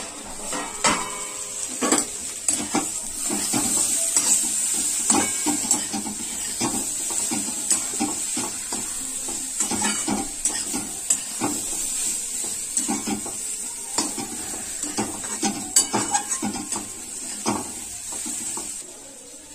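A metal spatula scraping and clinking against a kadhai as masala-stuffed okra is stirred partway through cooking, so the masala does not stick to the bottom. A steel lid clatters as it is lifted off at the start, and a steady frying sizzle runs underneath.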